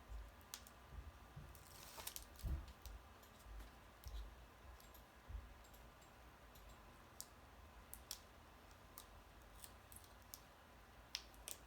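Faint, scattered clicks and light taps of fingernails picking at the backing paper on a strip of foam adhesive tape, with a brief rustle about two seconds in.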